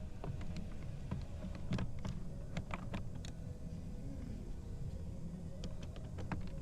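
Scattered light plastic clicks and taps as door-handle parts of a Mercedes-Benz GLE450 front door are worked loose by hand, over a low steady background rumble.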